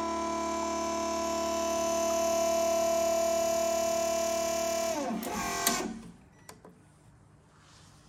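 Gear pump of a Nook mini variable-pressure espresso machine running with a steady whine as it pushes water through the group head, set a little below its 12-bar maximum. About five seconds in it is switched off: the whine slides down in pitch and dies away within a second, with a sharp click, then a fainter click after.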